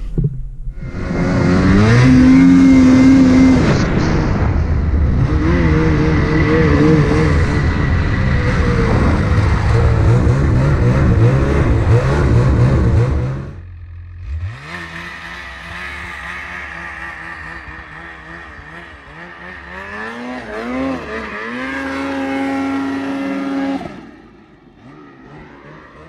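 A two-stroke snowmobile engine, heard close up, revving hard and pulling away, its pitch rising and falling as the throttle is worked. About 13 seconds in it cuts off suddenly to a quieter engine sound that revs up again near the end.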